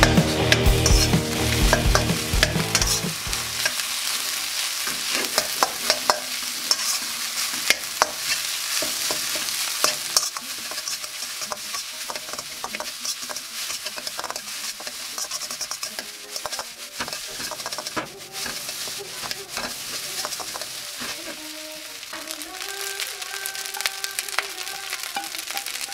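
Rice and scrambled egg being stir-fried in a hot oiled wok: a steady sizzle with a metal spatula scraping and clacking against the wok. The strokes are louder and busier in the first half, then ease off.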